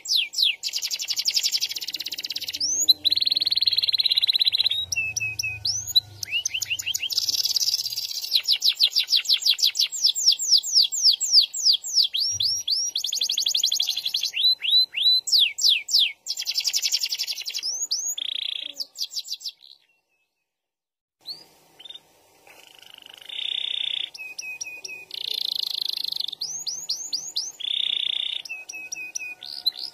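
Domestic canary singing long, rapid trilled rolls: fast runs of repeated notes and quick rising sweeps, with a short break about two-thirds of the way through.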